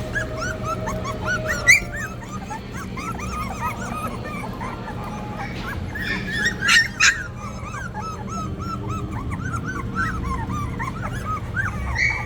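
A litter of three-week-old Australian Cattle Dog puppies whimpering and squeaking, with many short, high calls overlapping. A few louder yelps come about two seconds in and again around seven seconds in.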